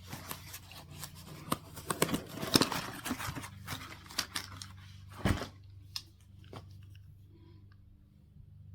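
Rustling and clicking from objects being handled at close range, with many sharp clicks over the first five seconds and a heavier knock a little past five seconds. After that the sound settles to a few faint clicks.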